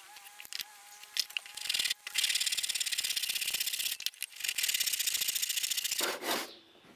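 Hand backsaw cutting a small block of wood: two runs of quick, rasping strokes, the first starting about two seconds in and the second after a brief pause about four seconds in, ending shortly before the close.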